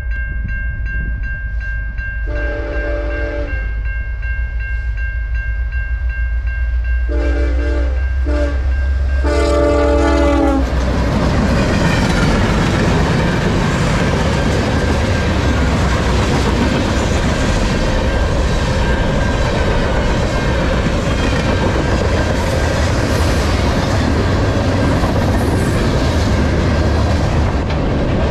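Locomotive horn of the CN freight train giving several blasts for the level crossing, the last one long, with the crossing bell ringing steadily behind. About ten seconds in, the locomotives reach the crossing and the freight cars rumble and clatter past steadily.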